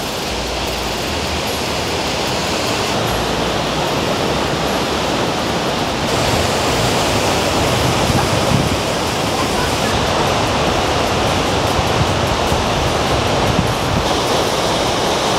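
Waterfall plunging into a deep pool: a loud, steady rush of falling water.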